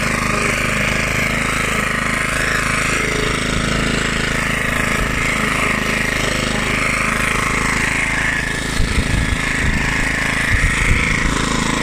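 1976 Hayterette rotary lawnmower's 3.5 hp Briggs & Stratton side-valve single-cylinder engine running steadily, its blade cutting long grass. The sound turns a little uneven in the low end over the last few seconds.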